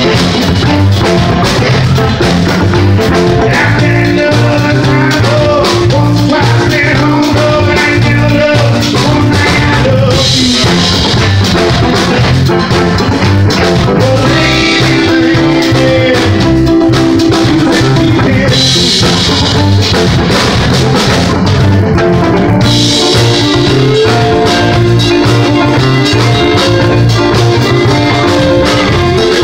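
Live band playing loud through a bar PA: drum kit and electric guitar, with a singer's vocals over them.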